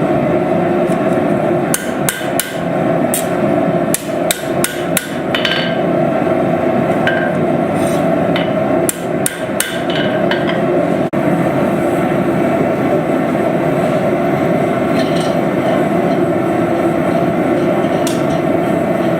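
Hand hammer blows on hot steel at the anvil, irregular and frequent through the first half, then only a few scattered taps, as a knife blade with a bottle opener is forged to shape. A loud, steady rushing noise runs underneath throughout.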